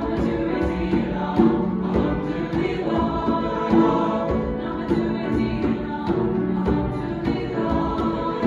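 Mixed choir singing in sustained harmony, accompanied by a djembe played with the hands in a steady beat.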